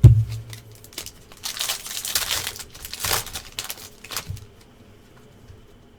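A knock, then a sports-card pack's wrapper being torn open and crinkled for about three seconds before it goes quiet.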